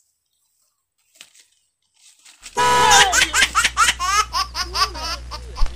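After about two and a half seconds of near silence, a high-pitched, rapid cackling laugh starts abruptly over a steady low hum. It sounds like a laughter sound effect laid over the scene.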